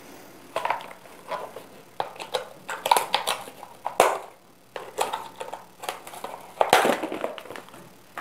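Cardboard packaging insert being handled and its tape cut with scissors: a series of irregular scrapes and knocks, with a sharp snip about four seconds in.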